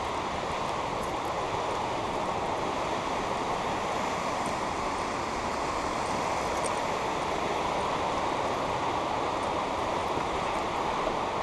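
Steady rush of a fast-flowing creek.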